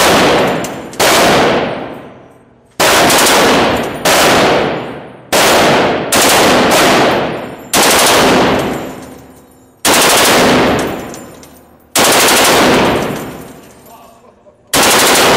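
Belt-fed machine gun on a pedestal mount firing about ten short bursts of automatic fire, one every second or two, each burst ringing out in a long echo off the walls of an indoor range.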